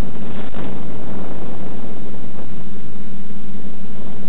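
Loud, steady hiss with an unchanging low hum, the audio of an analog 5.8 GHz FPV video downlink, with a brief crackle about half a second in.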